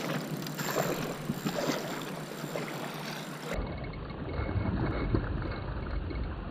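Wind rushing on the microphone over water splashing, as a hooked snook thrashes at the pond surface close to the bank. About halfway through, the sound turns suddenly duller and more rumbling.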